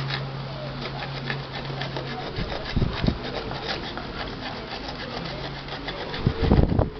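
Rapid, repeated scraping strokes on the metal rim of a pressure cooker lid as it is being reworked. There are dull knocks about halfway through, and a louder knock shortly before the end.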